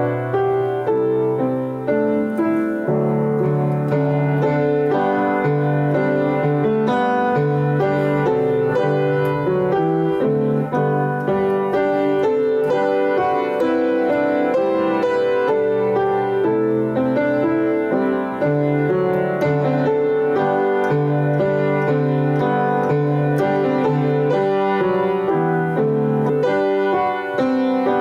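Instrumental piano music, steady throughout, with a moving melody over held bass notes.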